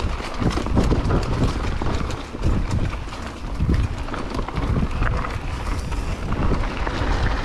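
Mountain bike riding fast down a dirt trail: wind buffeting the camera microphone over the low rumble of the tyres, with frequent short knocks and rattles as the bike hits bumps.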